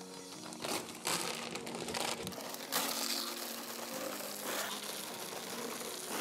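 Plastic bag of expanded clay pebbles crinkling as it is handled, then the pebbles pouring out and rattling into a plastic planter trough as a continuous noisy pour, loudest from about three seconds in.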